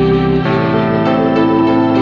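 Instrumental background music of held chords; about half a second in the chord changes and the low bass note drops out.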